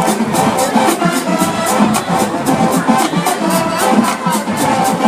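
Marching band playing during a halftime show: brass horns carry the tune over a steady drumline beat of about four strokes a second.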